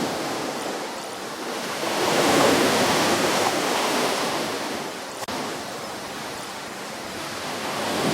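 Ocean waves breaking on a shore, a steady wash of surf. One wave surges in about two seconds in and recedes, and the next begins building near the end.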